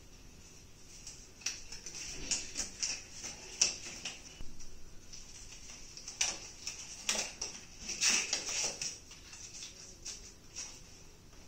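Disposable examination gloves being pulled onto the hands: crinkly rustling with short snaps of the stretched glove, in two bouts, one for each hand.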